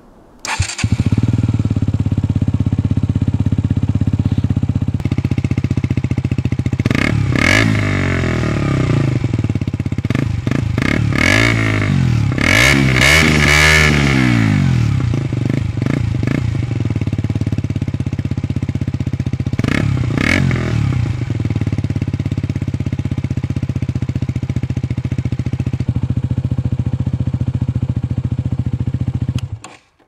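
2012 KTM Duke 125's single-cylinder four-stroke engine, breathing through its modified stock exhaust, starts up and idles steadily. A few seconds in it is revved in a run of short throttle blips, twice more later on, then settles back to idle and is switched off, cutting out suddenly near the end.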